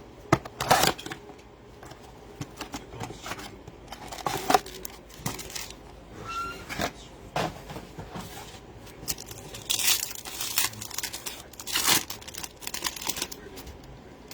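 Trading card packs and their wrapping being torn open by hand: repeated tearing and crinkling of the wrappers with short rustles, the loudest tears about ten and twelve seconds in.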